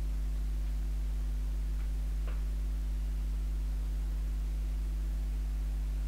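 Steady low electrical hum. About two seconds in, a metal spoon stirring in a steel pot gives two faint light taps.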